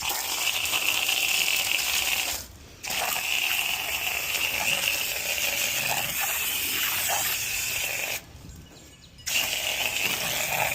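Garden hose spray nozzle hissing as water is sprayed onto an air-conditioner condenser coil, in three long bursts with two short breaks, the first about two seconds in and the second about eight seconds in.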